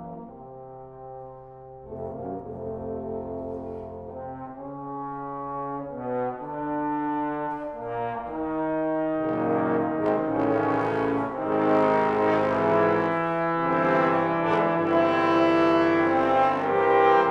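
Trombone sextet (four tenor trombones, bass trombone and contrabass trombone) playing slow, sustained chords with moving inner parts. It starts soft and builds in a long crescendo, the full chords growing louder and brighter about halfway through and loudest near the end.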